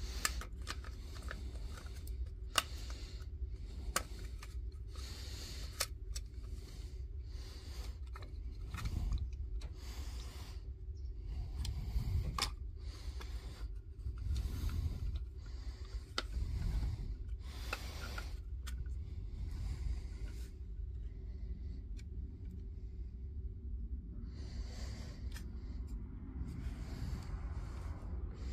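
Small clicks and scrapes of the laser level's plastic internal parts being handled and slid into place by hand, over a steady low hum.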